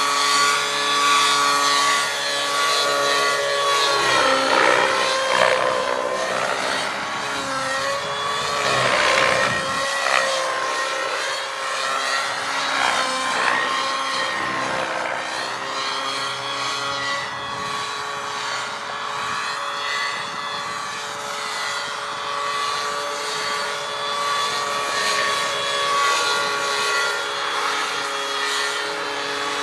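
Align T-Rex 700 radio-controlled helicopter flying aerobatics: the tone of its motor and rotor keeps rising and falling in pitch as it manoeuvres.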